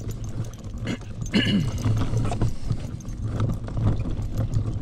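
Baby stroller rolling along a paved street, its wheels giving a steady low rumble that pulses a few times a second with the walker's steps, with light clicks and jangling. A short high-pitched sound comes about a second and a half in.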